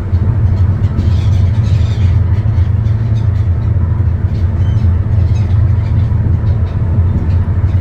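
A steady, loud low rumble with no speech over it.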